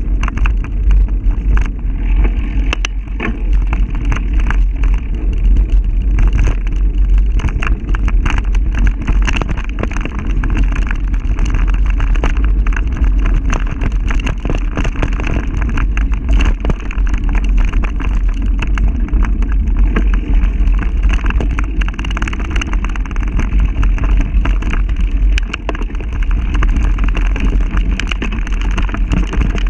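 Heavy wind rumble on the microphone with frequent rattles and knocks, from a camera jolting along a bumpy dirt trail at speed.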